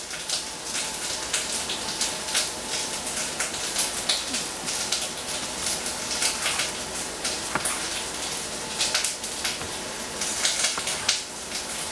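Onion frying in oil in a pan, a steady crackling sizzle, with a few taps of a cleaver slicing tomato on a plastic cutting board.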